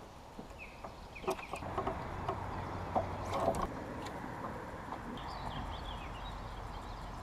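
Scattered light knocks and clicks from gear in a fishing kayak, bunched between about one and three and a half seconds in, with a few bird chirps over a low steady rumble.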